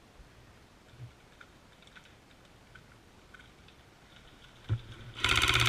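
Airsoft gun firing: a single sharp shot, then about half a second later a rapid full-auto burst of evenly spaced shots lasting under a second near the end.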